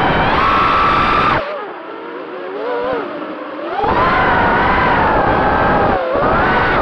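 Four XNova 2206 2300KV brushless motors spinning DAL 5040 tri-blade props on an FPV racing quadcopter, heard from the onboard camera: a loud whine that rises and falls with throttle, with wind rush. About a second and a half in the throttle drops and the tone sinks and wavers lower, then it comes back up to full power about four seconds in. The owner hears a persistent vibration from this quad and suspects the DAL 5x4x3 props.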